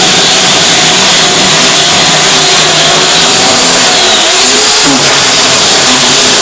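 Chainsaw running flat out while cutting through a couch, a loud steady engine note that dips briefly in pitch about four to five seconds in as the chain bogs in the upholstery.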